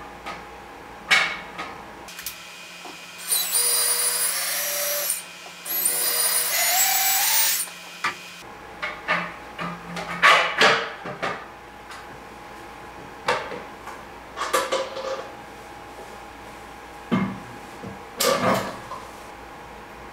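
Cordless drill run twice, about two seconds each time, its motor whine stepping up in pitch as it speeds up. Between and after the runs come scattered knocks and clunks of hollow 3D-printed plastic parts being handled.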